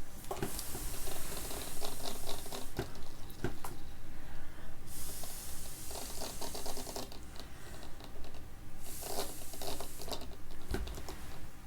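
Small plastic Kinder Joy toy pieces being handled and fitted together, with many light clicks and rustles. Three stretches of airy hiss come through, the longest near the start.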